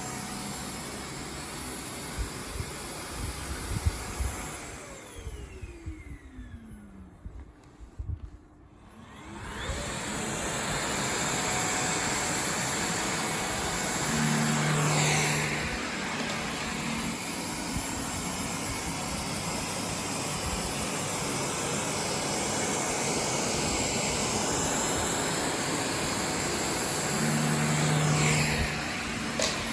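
Xiaomi Mijia wired dust mite vacuum cleaner running with a steady whirring rush. About five seconds in its motor winds down with a falling pitch to near quiet, then spins back up around ten seconds in and runs steadily again. Two short low hums come in briefly near the middle and near the end.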